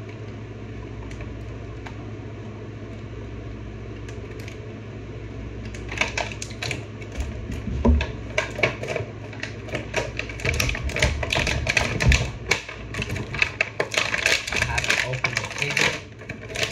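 Plastic action-figure packaging being cut and worked open by hand: from about six seconds in, a dense, irregular run of crinkling clicks and snaps, over a steady low hum.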